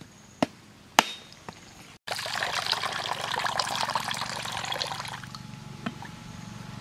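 Two sharp blows of a heavy knife on a coconut shell in the first second. Then coconut water pours from the cracked coconut into a plastic dipper, splashing steadily and thinning to a trickle about five seconds in.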